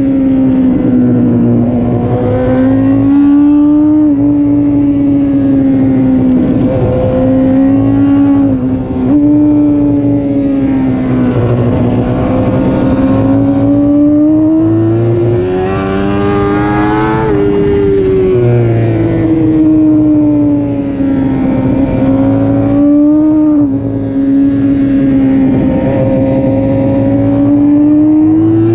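BMW S1000RR inline-four race bike engine at high revs, heard from on board, its pitch climbing and falling through the corners. It breaks off in short sharp dips a handful of times at the gear changes, most clearly after a long rising pull about two-thirds of the way through.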